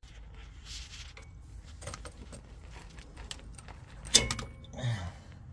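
Small metallic clinks and rattles of hand tools and hardware being handled, with one sharp metal clank about four seconds in.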